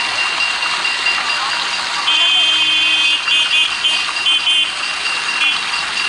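Steady murmur of a large crowd with a faint continuous high tone. A louder high-pitched whistle-like tone cuts in about two seconds in as one long blast, followed by five or six short blasts.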